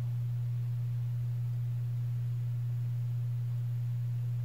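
A steady low hum: one unchanging tone with nothing else heard over it.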